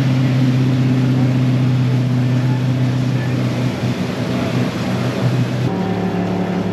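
Motorboat engine running steadily under way, over a rush of wind and water. Near the end the engine note changes abruptly to a different pitch.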